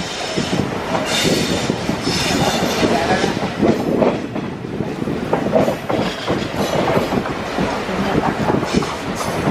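Passenger train hauled by an ALCO WDG-3A diesel locomotive running along the line, heard from aboard a coach: steady rumble with wheels clattering over the rail joints and some high wheel screech about one and two seconds in.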